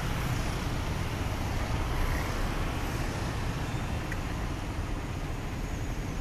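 Steady road traffic: motor scooters and motorbikes passing close by, with a low engine rumble.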